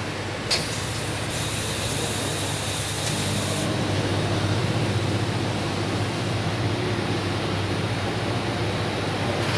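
Welding workshop noise: a steady hum and rushing noise of machinery, with a sharp click about half a second in followed by a high hiss lasting about two seconds.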